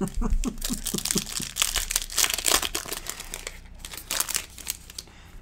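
Foil wrapper of a basketball card pack being torn open and crinkled in the hands: a dense run of crackling that is loudest in the middle and stops shortly before the end.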